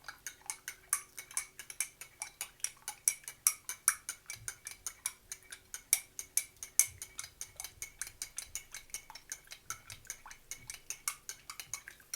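A spoon stirring a honey-and-lemon drink, clinking rapidly against the sides of the container at about five or six quick clinks a second.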